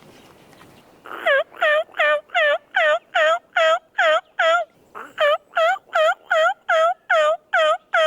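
Turkey yelping: an even series of loud, clear yelps, about two and a half a second, in two runs with a short break about halfway through.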